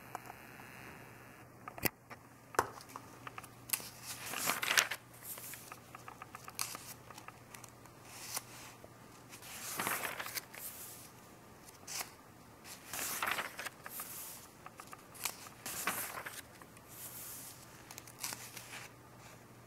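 Glossy magazine pages being handled and turned: a series of paper swishes and rustles, with two sharp clicks about two seconds in and a faint steady hum underneath.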